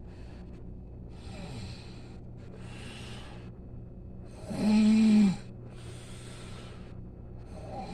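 Snoring: a run of slow, breathy breaths in and out, with one loud, buzzing snore about four and a half seconds in that lasts about a second.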